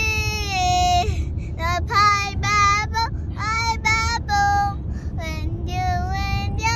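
A young girl singing: one long held note that dips in pitch and ends about a second in, then a string of short sung phrases, over the steady low rumble of a car cabin.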